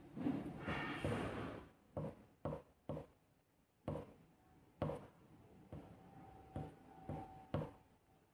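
A string of short, sharp, uneven taps and knocks on a tabletop, about nine over several seconds, as things are handled on the table.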